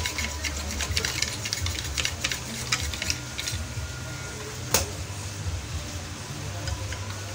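A quick run of small clicks and rattles from handling parts at a workbench, then a single sharper knock about halfway through, over a steady low hum.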